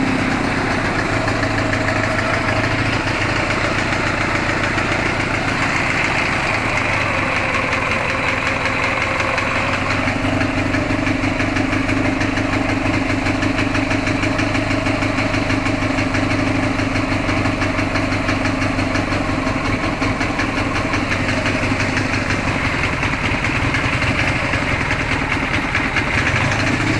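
Ural engine idling with a repetitive knock, a knock the owner hears only when the engine is cold and which goes away once it warms up, when the idle also steadies.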